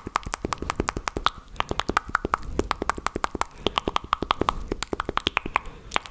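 Fast, aggressive ASMR mouth sounds close to the microphone: a rapid run of wet clicks and pops made with the tongue and lips, several a second.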